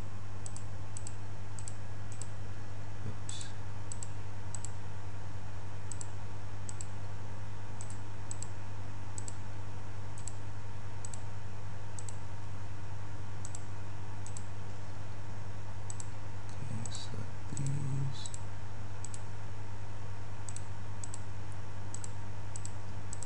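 Computer mouse buttons clicking at irregular intervals, about one or two a second, as polygons are picked one by one in a 3D modelling program, over a steady low electrical hum. A brief low sound comes about three quarters of the way in.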